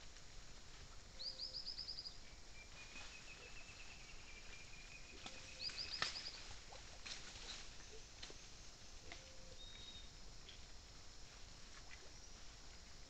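Forest birds calling: a quick run of about seven high notes twice, and a long, slow, even trill running between them. Under the calls are faint scattered rustles and clicks from peccaries rooting in leaf litter, the sharpest about six seconds in.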